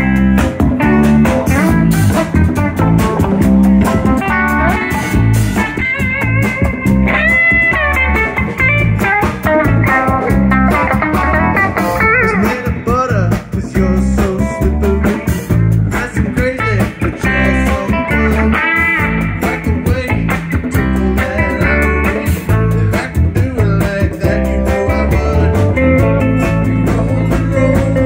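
Live band playing an instrumental blues-rock groove: a guitar leads with bent notes over a steady drum beat.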